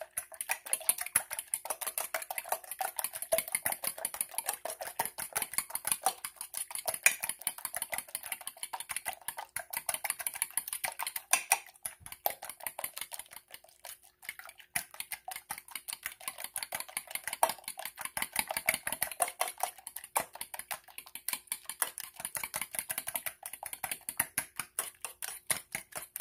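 A metal fork beating raw quail eggs in a stainless steel bowl: a fast, even run of clicks as the fork strikes the bowl's side, with a short lull about halfway through.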